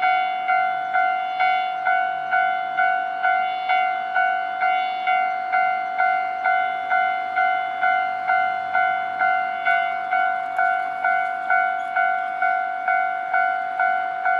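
Japanese railway level-crossing warning bell ringing, a pitched electronic ding repeating steadily about twice a second. It signals that the crossing is closing for an approaching train.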